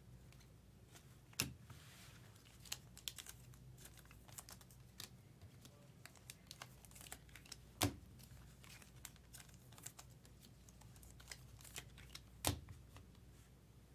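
Faint, scattered light clicks and crinkling from small objects being handled on a desk, with three sharper clicks about a second and a half, eight and twelve and a half seconds in.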